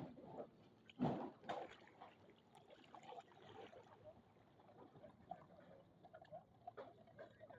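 Knee-deep floodwater sloshing and splashing as someone wades through it, with a louder splash about a second in and faint scattered splashes after.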